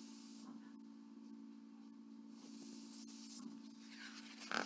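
Soft rustling of a hardcover picture book's paper pages being handled and turned, with a brief louder rustle near the end, over a steady low hum.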